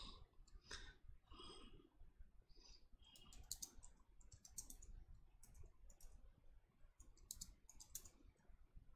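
Faint clicks of keys on a computer keyboard being typed on, scattered keystrokes at an uneven pace.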